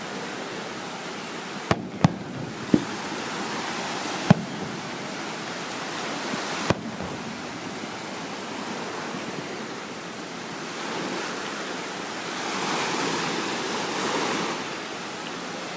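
Surf washing steadily on the shore, with a wave surging in louder about twelve seconds in. Five sharp bangs of fireworks go off in the first seven seconds.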